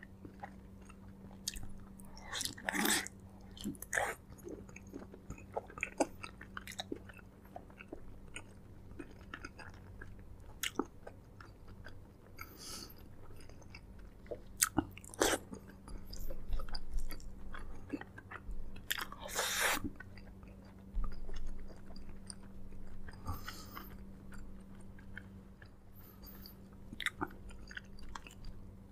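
A person chewing braised pork leg close to the microphone: wet, smacking chews and small clicks, with a few louder bites or slurps, the loudest about three seconds in and around the middle. A faint steady hum runs underneath.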